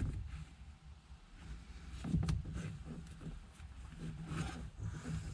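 Hands pressing and rubbing on cloth seat upholstery while working glue into a slash, with a low rumble of handling noise and a few soft knocks, the loudest about two seconds in.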